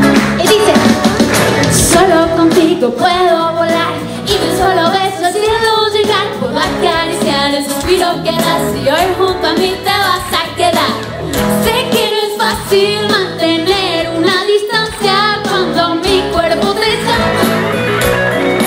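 A woman singing a pop song into a handheld microphone, with acoustic guitar accompaniment.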